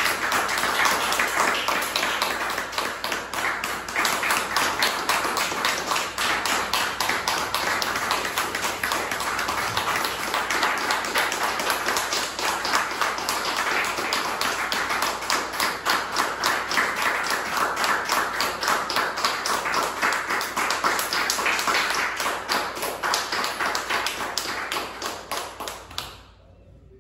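Theatre audience applauding during the curtain call: dense, steady clapping that cuts off near the end.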